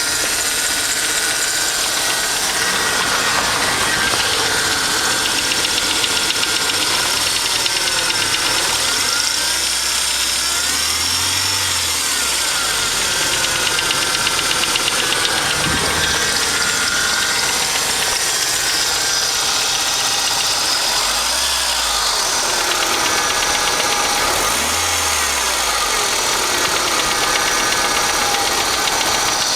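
BMW E36's M43 four-cylinder petrol engine running with a knock, which the owner hears only once the engine is warm and never when cold. The revs rise and fall briefly a few times.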